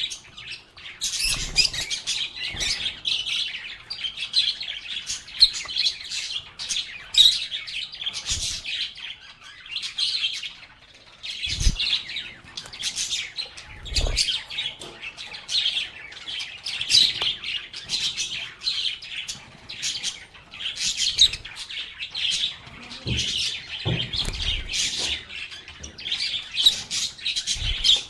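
Several lovebirds chirping and chattering without a break, high and busy, with a few short low knocks mixed in.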